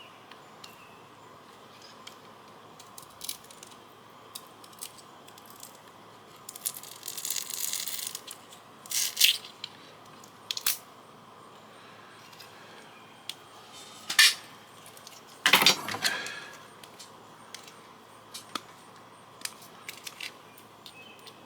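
Scattered clicks, taps and rattles of small plastic and metal fax-machine parts being handled and pried apart by hand. A short scraping, rustling stretch comes about seven seconds in, and the loudest knocks come about two-thirds of the way through.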